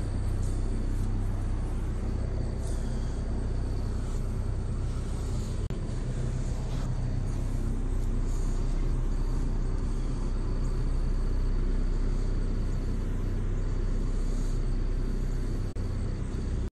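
Large poultry- or swine-house exhaust fans running with a steady low rumble and hum, with a faint steady high whine over it.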